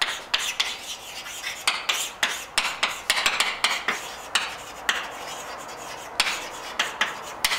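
Chalk writing on a blackboard: an irregular series of sharp taps and short scratching strokes as letters are written.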